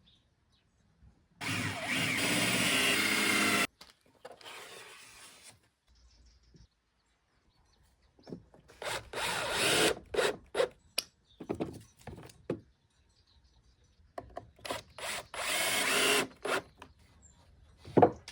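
Power drill driving screws into pallet wood: one steady run of about two seconds, then several short stop-start runs as the screws are driven home, with a knock near the end.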